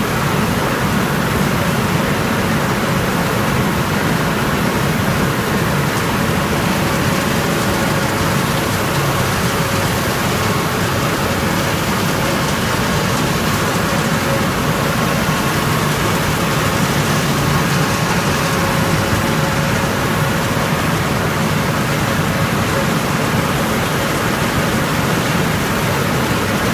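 Wood pellet production line machinery running steadily: a continuous loud mechanical rush with a faint steady hum, as the pellet mill line turns out pellets onto the conveyor.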